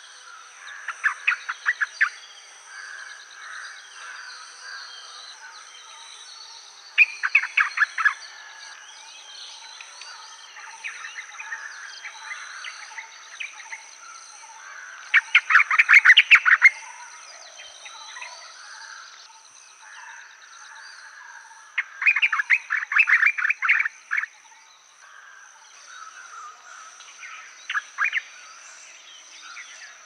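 Outdoor nature ambience: loud bursts of rapid chirping calls come about every six seconds, with softer calls between them, over a steady high-pitched whine.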